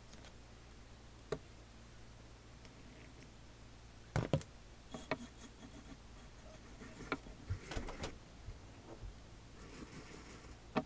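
Bamboo chasen whisking matcha in a ceramic tea bowl: scratchy swishing of the tines against the bowl in short brisk spells through the second half. A click about a second in and a sharp knock about four seconds in come as the whisk and bowl are handled.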